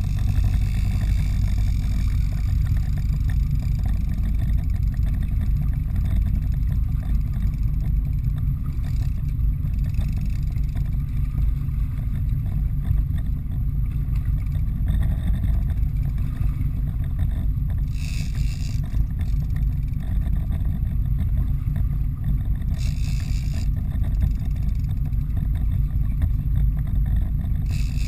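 Fishing boat's engine running, a steady low rumble that does not change, while a bluefin tuna is fought on stand-up gear. Two short hissing sounds stand out over it, about two-thirds of the way through and again near the end.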